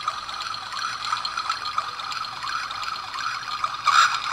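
Timex T122NW alarm clock playing its built-in "brooks" nature sound: a recorded babbling stream through the clock's small speaker, thin with almost no bass. It swells louder near the end.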